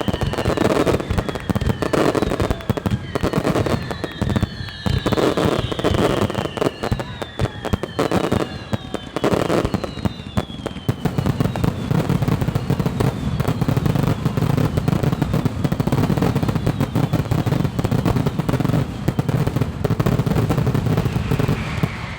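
Aerial fireworks display: dense rapid bangs and crackling, with repeated falling whistles from shells in the first half. From about halfway the bangs run together into a continuous barrage.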